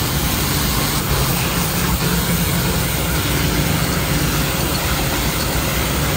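Pressure washer running steadily: the even hiss of its water jet blasting against a car radiator's fins, over the low hum of its pump motor.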